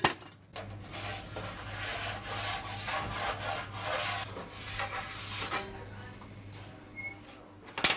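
A sharp clank, then about five seconds of uneven rasping scrapes as wood and embers are raked and stoked inside a wood-fired bread oven, over a steady low hum.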